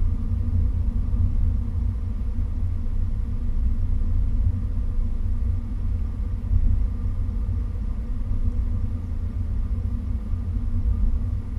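Steady low rumble of an Acura car driving, heard from inside the cabin: engine and road noise, with a few faint steady tones above it.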